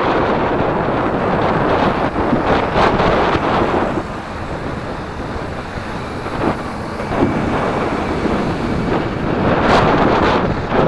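Wind buffeting the microphone: a loud, rough rush that eases off for a few seconds midway and picks up again near the end.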